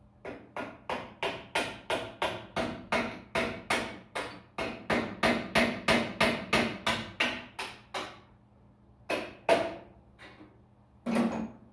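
A hand hammer striking metal in a steady run of blows, about three a second, for some eight seconds. After a pause come a few more single blows and a louder clatter near the end.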